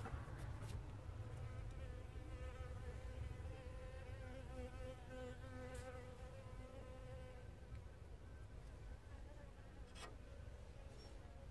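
A flying insect buzzing faintly, its pitch wavering, fading out after about seven seconds, over a steady low rumble. A single sharp click near the end.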